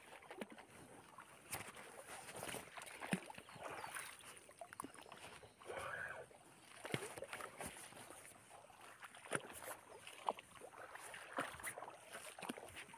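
Irregular rustling, small knocks and light splashing from someone moving through flooded grass and water while handling a fishing rod, over a faint steady high hiss.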